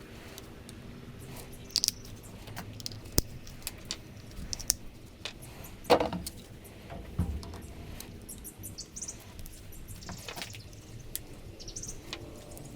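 Scattered small clicks and clinks of pliers pulling brass pins out of heat-softened plug rubber, with a few sharper knocks about six, seven and ten seconds in.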